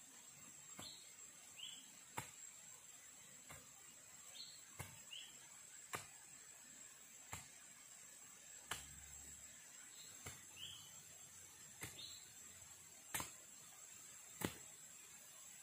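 Faint sharp knocks, evenly spaced at about one every second and a third, over a steady high insect drone, with short rising bird chirps now and then.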